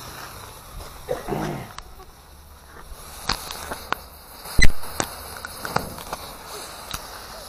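Small round ground fireworks burning with hissing sparks, then a string of sharp pops, about six in four seconds, the loudest about halfway through as the piece throws up a puff of white smoke.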